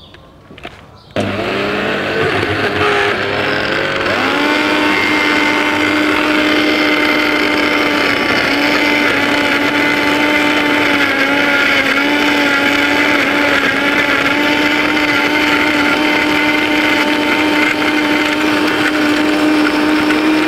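Loud countertop blender switched on about a second in, blending strawberries with ice cubes and water. Its motor pitch steps up after a few seconds and then runs steady, and at the end it is switched off and winds down with a falling whine.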